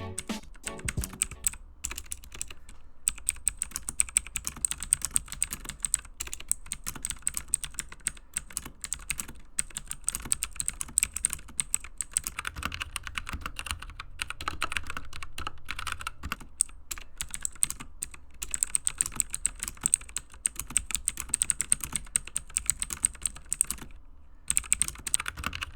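Continuous fast typing on a mechanical keyboard with clicky Outemu Blue switches: a dense stream of sharp key clicks, broken by a few brief pauses, one near the end.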